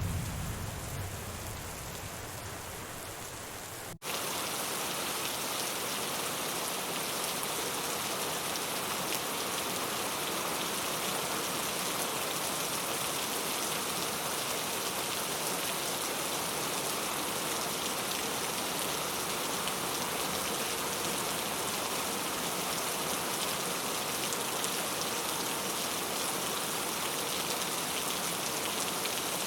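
Rain falling steadily, with the last of a thunder rumble dying away in the first second or so. About four seconds in, the sound cuts abruptly to a slightly louder, even rain that holds steady.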